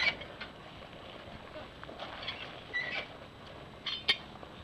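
Knocks and clanks from the back of a horse trailer as the rear bar and door fittings are handled with a horse inside, with a short squeak near the middle and a sharp metallic clank about four seconds in.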